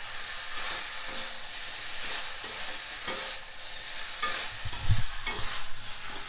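Roti strips and vegetables sizzling as they are stir-fried in a metal kadai, with a metal spoon scraping and clinking against the pan. A louder thump comes a little before five seconds in.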